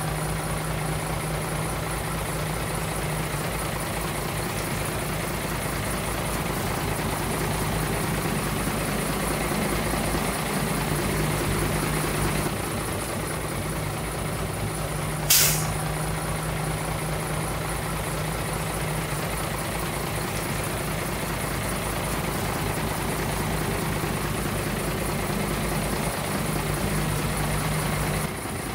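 Heavy dump truck's diesel engine running steadily, with a short sharp hiss about halfway through.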